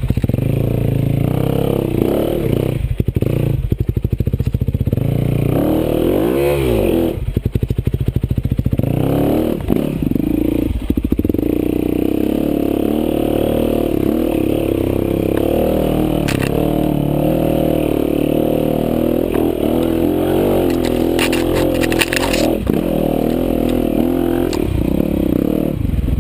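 Motorcycle engine running under load, with the revs rising and falling sharply about six to eight seconds in. A short burst of clattering comes near the end.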